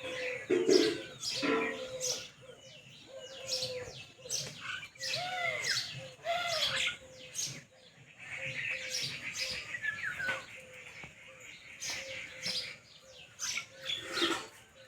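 Several small pet parrots chirping and chattering together, with many quick, sharp calls overlapping and a run of rapid twittering about halfway through.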